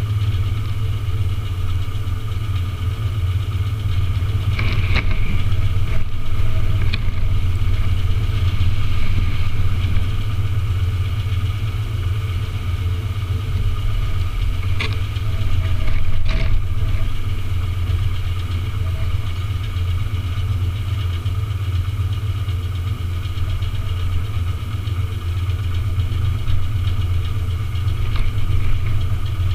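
Engine idling with a steady low drone, and a few short sharp knocks.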